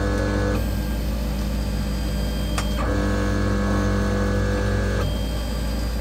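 Stepper motors of a FolgerTech 2020 Prusa i3 kit 3D printer whining as they drive the axes through a dry-run print. The whine comes in two stretches, one stopping about half a second in and another from about three to five seconds in, over a steady low hum.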